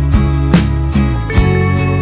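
Instrumental background music with plucked guitar and a steady beat.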